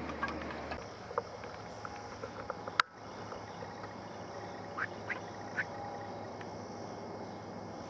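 Three short, nasal, quacking calls in quick succession from a squirrel barking in the treetops, about two seconds after a single sharp crack, the loudest sound, a little over a third of the way in.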